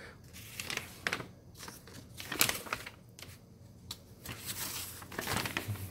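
Paper rustling and crinkling as a folded instruction sheet is handled and turned to another page, in several short bursts.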